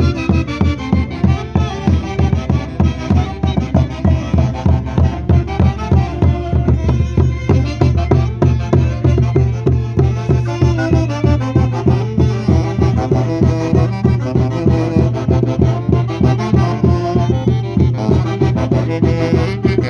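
Live Huancayo-style orchestra playing Santiago festival music, with wind instruments carrying the tune over a steady, evenly pulsing beat.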